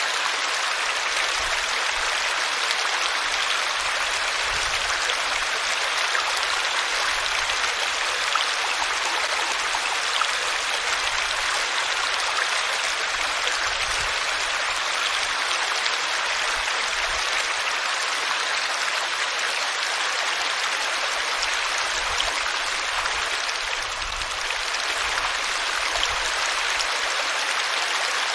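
Water flowing steadily in a stream, a continuous even rush.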